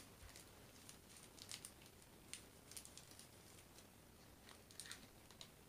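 Near silence with a few faint, short plastic clicks and crinkles from handling small zip baggies of diamond painting drills and a plastic storage box.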